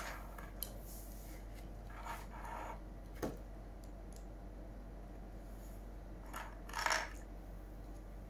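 Plastic LEGO bricks clicking and rattling as they are handled and pressed together, with a sharp click about three seconds in and a louder clatter of bricks a little before the end.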